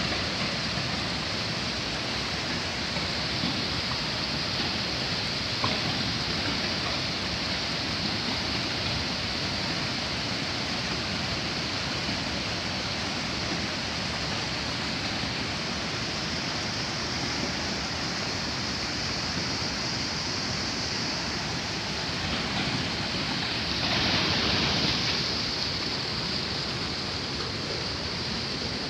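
Waterfall's rushing water: a steady, dense hiss, briefly louder and brighter about 24 seconds in.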